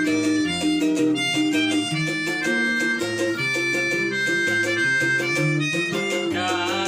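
Instrumental break of a song: a melodic lead line over plucked-string accompaniment with a steady beat, no singing. About six seconds in, a brighter sustained instrument comes in.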